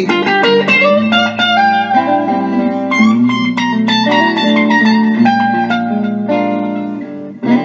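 Guitar playing a run of single-note blues licks between sung lines of a slow blues, over a steady held low note.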